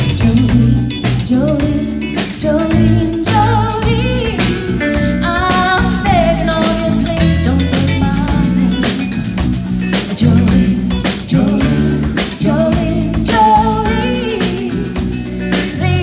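Live band playing: a woman singing into a microphone over electric guitar, electric bass and a drum kit.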